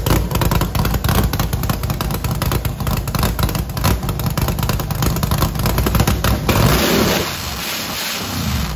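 The Silverado's freshly built 408 cubic-inch stroker V8 is running rowdy on its first start-up, heard at the four side-exit exhaust tips. About seven seconds in, the low rumble drops away and a hiss is left.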